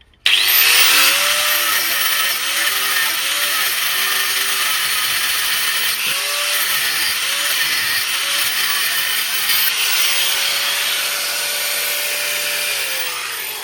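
Power tool cutting through the seized steel nut of a stabilizer link, switching on abruptly with a loud, hissing grind. Its motor pitch dips again and again under load, then falls away near the end as it winds down.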